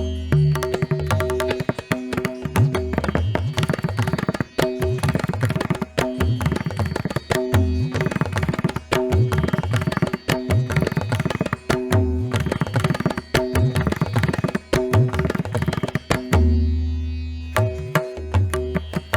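Background music: fast tabla drumming over steady held notes, with deep bass strokes.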